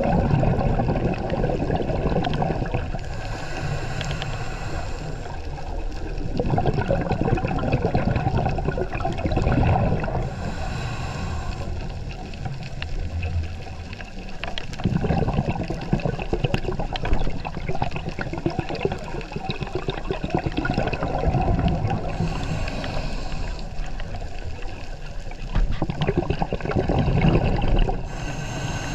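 Underwater scuba-diving sound: gurgling of a diver's exhaled bubbles, swelling in bursts several seconds apart over a steady low rumble.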